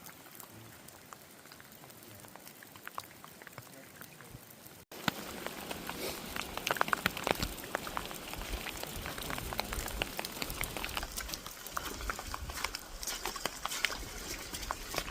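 Running stream water with a crackling patter of small drips and splashes. About five seconds in it jumps louder, with denser patter and a low rumble.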